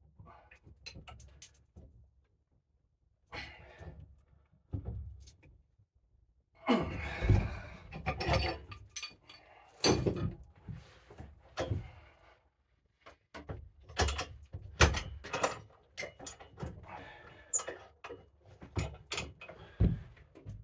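Irregular knocks, thunks and metal clanks, with a stretch of scraping and rubbing about a third of the way in, as a bent ice auger bit is pried and levered back into shape with a hand tool.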